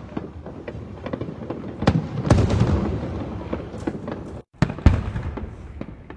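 Aerial fireworks bursting in quick succession: sharp bangs with rolling booms and crackle between them, the loudest about two seconds in and again near five seconds.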